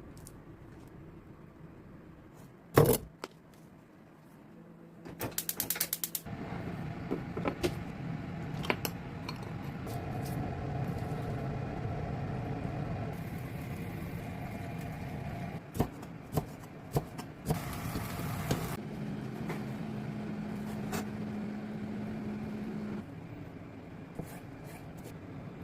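Kitchen sounds while a dish is cooked: a sharp knock, then a rapid run of clicks about five seconds in, followed by a steady hum and hiss with scattered clinks, and a steady low tone near the end.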